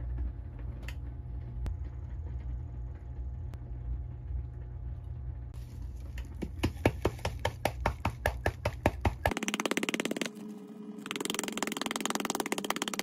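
A low steady hum with a run of sharp clicks. Then powdered Parmesan cheese is shaken out of a container into a ceramic bowl: a fast, dense rattling that pauses briefly and starts again.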